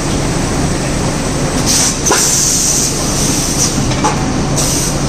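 Automatic bitumen bag-filling and packaging line running: a steady mechanical rumble with several short hisses of compressed air from its pneumatic actuators and a sharp clack about two seconds in.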